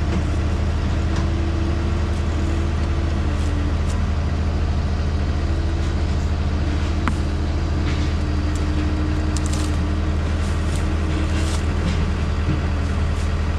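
Skid steer track loader engine running steadily at low speed, a deep even drone, with a few light clicks during it.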